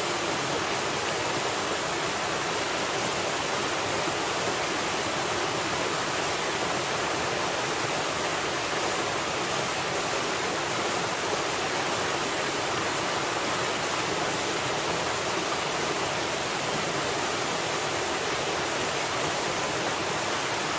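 Small waterfall pouring over rocks into a pool: a steady, even rush of falling water.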